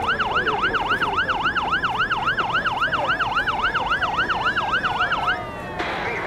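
Fire engine's electronic siren in yelp mode, sweeping rapidly up and down about four times a second, with a slower tone falling steadily beneath it. The yelp cuts off about five seconds in, leaving a steady rushing noise.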